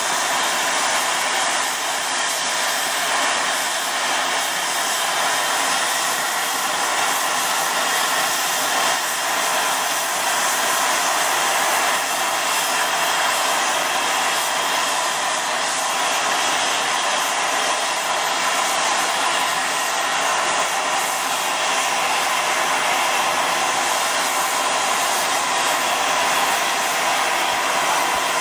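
Steady hiss from a small Corpet-Louvet 0-4-0 steam tank locomotive running along the track, heard right beside the engine. It is an even rushing noise with no distinct exhaust beats.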